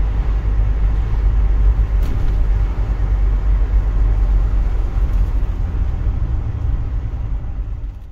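Steady low rumble inside a moving camper van's cabin, engine and road noise while driving, fading out near the end.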